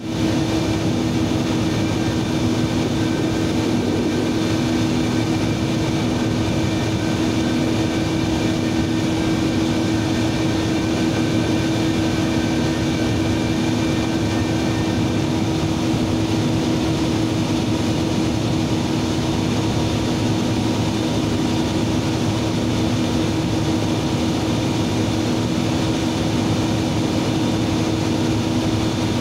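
Steady, loud industrial machinery hum, with two low steady tones over a dense noise bed. A fainter higher whine fades out about halfway through.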